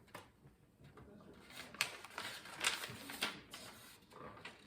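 Plastic parts of a Shark vacuum cleaner being handled and fitted together: a few sharp clicks and knocks with some rustling, the loudest about two to three and a half seconds in.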